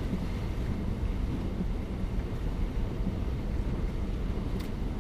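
Low, steady rumble of a car driving slowly through floodwater, heard from inside the cabin. There is a single sharp click near the end.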